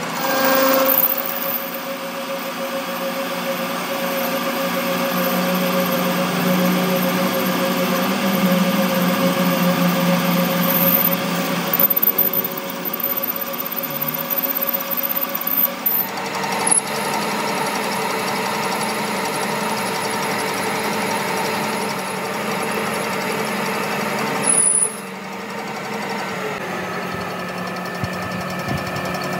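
Metal lathe running, its chuck spinning as it turns a steel sleeve: a steady machine hum with gear whine. The sound changes abruptly about 17 seconds in and again about 25 seconds in.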